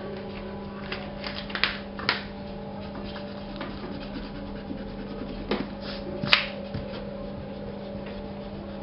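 Drawing strokes scratching on paper: a handful of short strokes, the loudest about six seconds in, over a steady low electrical hum.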